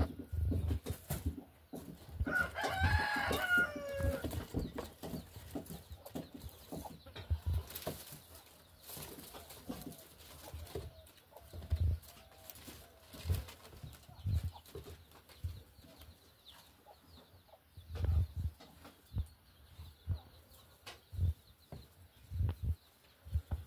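Kittens scuffling and pouncing on wooden floorboards: a string of soft, irregular low thumps. About two seconds in, an animal call wavering up and down in pitch is heard for a second or two.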